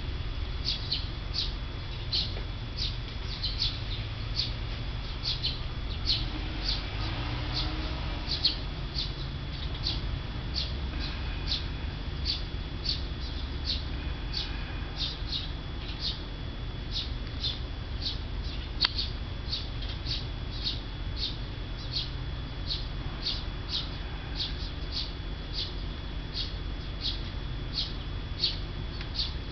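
A high, short chirp repeated evenly about twice a second without a break, over a low background rumble.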